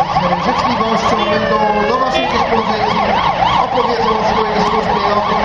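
Emergency vehicle siren switching patterns: a fast warble, then a falling glide about a second and a half in, then a slower warble of about three rises a second.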